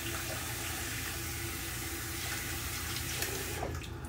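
Water running from a bathroom sink tap in a steady hiss, shut off near the end with a few faint clicks.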